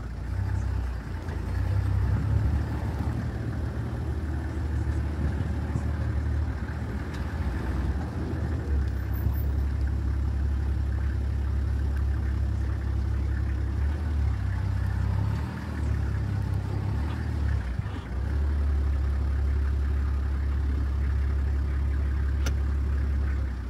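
Safari vehicle driving slowly along a sandy dirt track: steady low engine rumble with tyre and road noise, dipping briefly twice in the second half.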